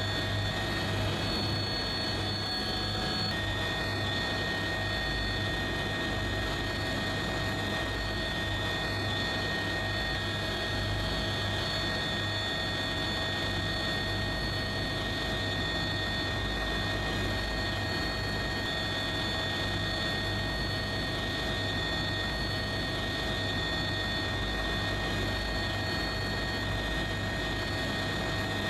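A steady engine drone, even in level throughout, with several fixed tones held over a rushing noise.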